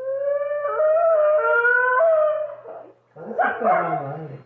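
A long, high wailing howl whose pitch wavers and steps up and down, breaking off near three seconds in, followed by about a second of rougher, overlapping cries sliding down in pitch.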